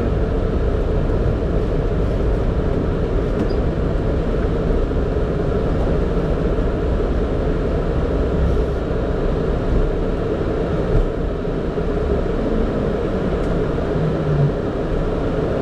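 Steady rumble of engine and airflow noise inside a Boeing 767 cockpit, with a faint steady hum running through it.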